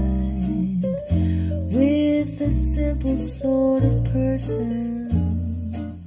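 Recorded music with plucked acoustic guitar over deep sustained low notes that change about once a second, played back through a pair of stand-mount hi-fi speakers.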